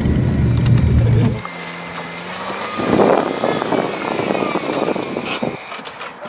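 Car engine and road rumble heard inside the cabin on a rough dirt track. About a second and a half in, this cuts to an Opel Vectra's engine running outside in the mud, which swells briefly about three seconds in and then fades.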